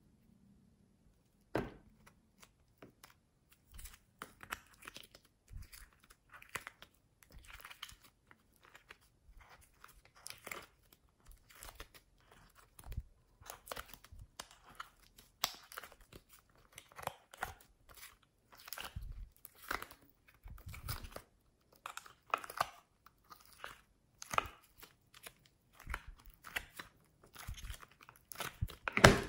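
Soft modelling clay being pried and pulled out of a thin plastic butterfly-shaped case: irregular crackling, crinkling and clicking of the flexing plastic mixed with the clay squishing and tearing, a few strokes a second, with a sharp snap near the end.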